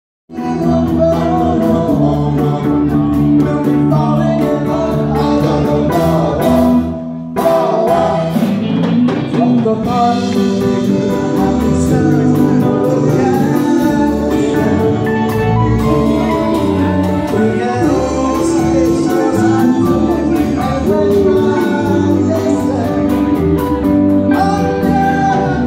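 A male singer singing into a handheld microphone over instrumental backing music, amplified through a PA. The music breaks off briefly about seven seconds in.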